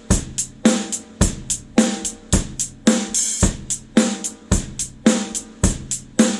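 Drum kit played in a steady beat: bass drum and snare drum alternate, each about once a second, with hi-hat strokes between. The snare rings on briefly after each hit.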